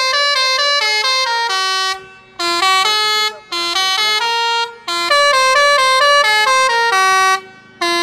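Basuri musical air horn (telolet horn), fed by an air compressor, playing a tune: quick runs of stepped horn notes in melodic phrases, broken by short pauses about two seconds in, near the middle and near the end.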